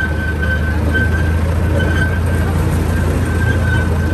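Miniature amusement-park train running along its track: a steady low engine drone with rolling rail noise, and short high squeaks coming and going.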